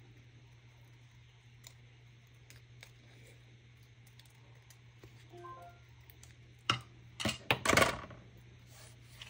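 Art supplies being handled on a craft table: scattered light clicks and taps, then a loud clatter and rustle about seven seconds in, over a steady low hum.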